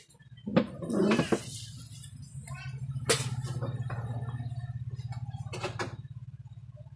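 A refrigerator being opened and rummaged, with glass soda bottles clinking sharply about three seconds in and again near the end, over a low steady hum.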